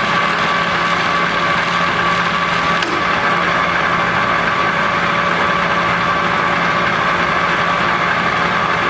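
Sebastian A-8 engine lathe running under power: a steady mechanical hum with a constant whine.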